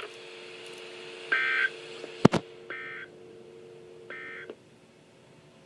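Emergency Alert System end-of-message data tones on a NOAA Weather Radio broadcast: three short buzzy bursts about 1.4 seconds apart, closing the required weekly test. A steady low hum runs under them and cuts off about four and a half seconds in, with a sharp click between the second and third bursts.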